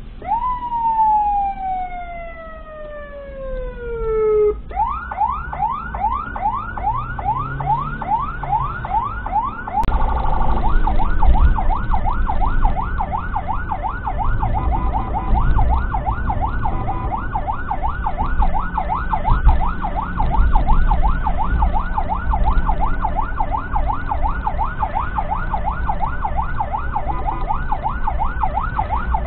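Ambulance siren heard from inside the ambulance: first one long wail that falls slowly in pitch, then a fast yelp of rising sweeps, several a second. Engine and road rumble run underneath.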